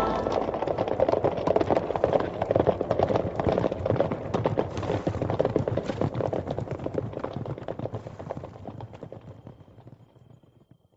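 Hoofbeats of horses galloping: a dense, irregular patter of hooves that fades away over the last few seconds.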